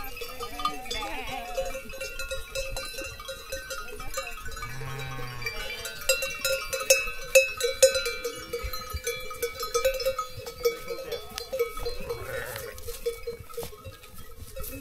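Bells on livestock clanking and jingling, with a couple of bleats from the animals, one about five seconds in and one near the end.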